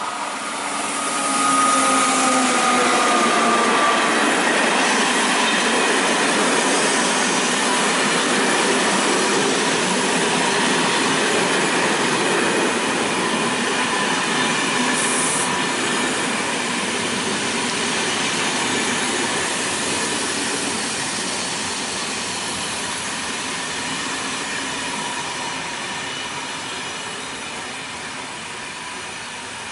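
SNCF BB 7200 electric locomotive passing with its train of Corail coaches. A high whine drops slightly in pitch as the locomotive goes by. A loud, steady rolling rush of the coaches' wheels on the rails follows and fades toward the end.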